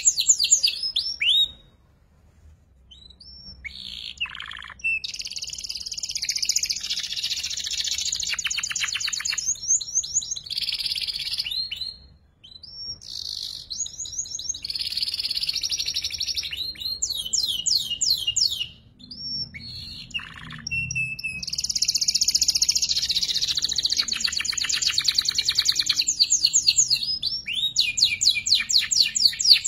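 Young domestic canary still learning its song, twittering in long phrases of rapid chirps and trills that are broken by short pauses about 2, 12 and 19 seconds in.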